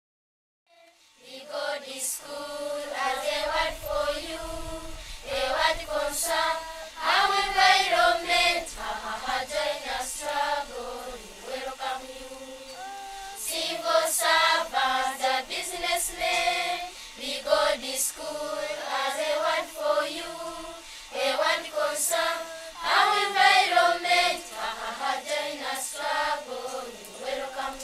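Primary-school children singing a song together in chorus, starting about a second in after a brief silence.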